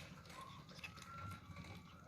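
Kittens eating, faint wet chewing and smacking clicks, with a faint short mew about half a second in.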